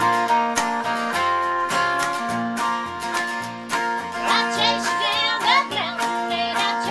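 Country song played live on acoustic and electric guitar, with strummed chords over a steady low note pattern. A woman's singing voice comes in about four seconds in.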